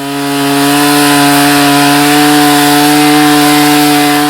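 Stihl 290 two-stroke chainsaw held at full throttle in a steady high whine, sawing through freshly felled Scots pine, easing off at the very end.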